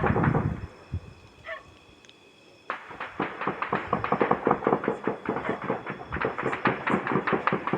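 Rifle fire in a sustained exchange: a loud bang at the very start, then from about two and a half seconds in a rapid, unbroken run of shots, several a second, that continues to the end.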